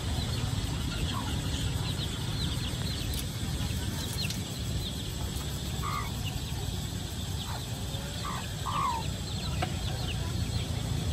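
Outdoor street ambience: a steady low rumble with a few short bird calls, a pair of them about six seconds in and two more just before nine seconds, and light high chirps scattered throughout.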